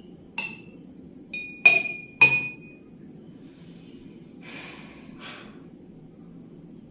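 Drinking glasses struck one after another in a tapping game: four sharp clinks, the second faint, each ringing briefly with a clear high tone, the last two loudest. Two soft hissy sounds follow a couple of seconds later.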